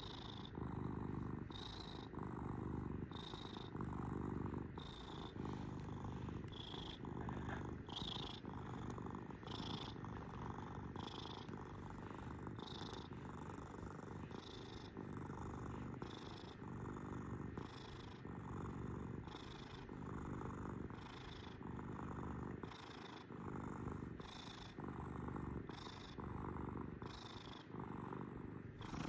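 Domestic cat purring continuously, the purr swelling and easing in a regular rhythm with each breath, about one cycle every second and a half.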